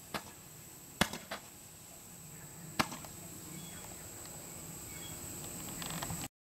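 Consumer fireworks going off: four sharp pops within the first three seconds, two of them close together about a second in and a loud one near three seconds, over a faint hiss. A weaker crackle follows near the end before the sound cuts off suddenly.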